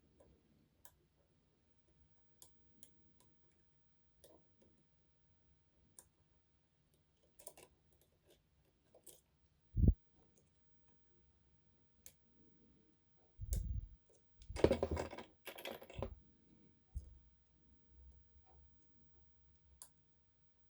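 Light, scattered metallic clicks of lock picks working the pins inside an Adamant spinning-key lock during picking. A single dull thump about halfway through and a few seconds of rustling handling noise a little later are the loudest sounds.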